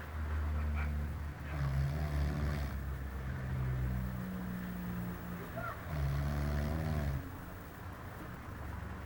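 Person snoring in deep sleep: a few long, low-pitched rattling snores, the last starting about six seconds in.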